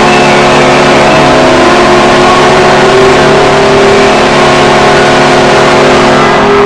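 Recreated Buffalo Sabres goal horn made in music software: a low horn chord of several notes held steady over a constant hiss-like noise bed. It stops shortly before the end, leaving one single tone sounding.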